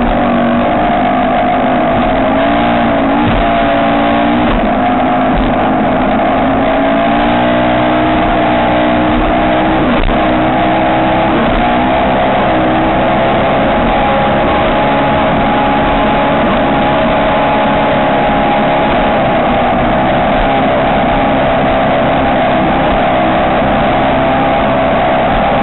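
Ski race boat engine running hard at high revs, loud and steady, its pitch wavering slightly up and down.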